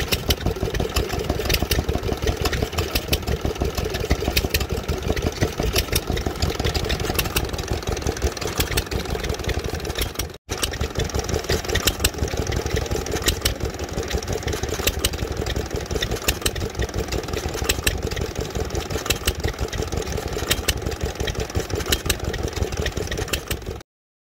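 Small single-cylinder air-cooled stationary engine running steadily with a fast, even beat. The sound breaks off for a moment about ten seconds in, picks up again, and cuts off abruptly just before the end.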